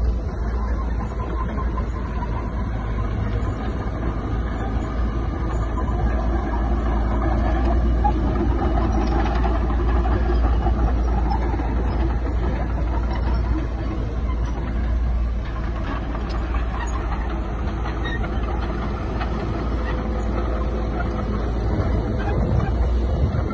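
Heavy diesel earth-moving machinery running steadily, a continuous low engine rumble with some mechanical clatter over it.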